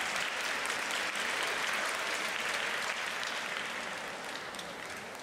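Crowd of spectators applauding, a dense steady clapping that slowly fades over the last couple of seconds.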